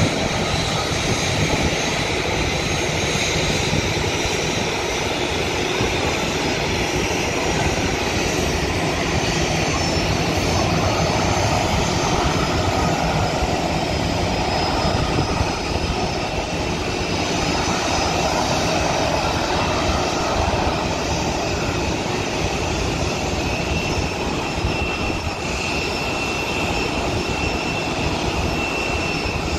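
Jet airliner engines running at idle thrust on taxi: a steady rumble with a high whine that grows a little stronger near the end.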